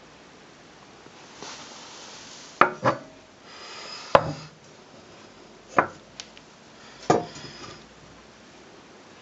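Solid-metal fireside trivet being handled and tipped over, its legs and frame knocking on a hard floor: five sharp knocks, two close together about two and a half seconds in, then one about every second and a half, with brief scraping between.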